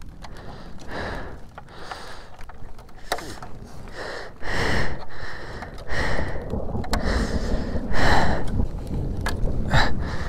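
A person breathing hard in short, noisy breaths about every second, over wind rumbling on the microphone, with a few sharp clicks.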